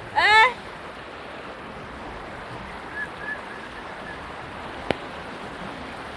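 Floodwater flowing with a steady rushing sound. A short, loud, high-pitched call sounds right at the start, and a sharp click comes near the end.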